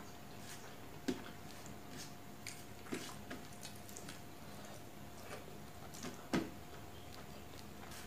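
Close-up eating sounds: wet chewing and mouth smacks, with the soft squish and clicks of fingers mixing rice and chicken-egg curry on a steel plate. Irregular sharp clicks, the loudest about a second in, near three seconds and just after six seconds.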